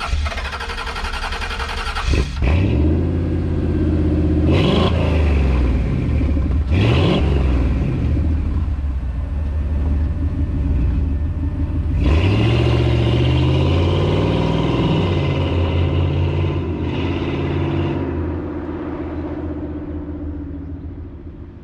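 Ford Coyote 5.0 V8 in a 1975 Ford Bronco: the engine is revved, blipped twice, then pulls away about halfway through, rising in pitch as it accelerates and fading as the truck drives off.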